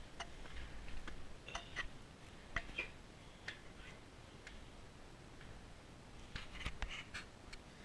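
Footsteps going down concrete and perforated metal stair steps: faint, scattered clicks and scuffs of shoes, with a few closer together near the end.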